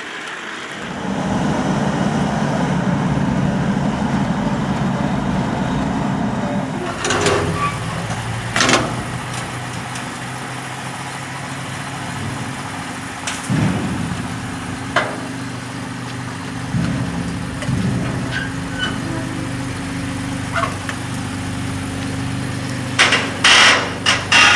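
A vehicle engine comes in about a second in and then runs steadily at idle, with a few scattered clunks or knocks over it and several sharp clicks near the end.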